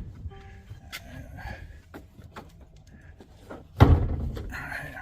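Handling noises on a Winnebago Revel van as the hood is released: light clicks and knocks, then one loud thump near four seconds in, followed by a rustle.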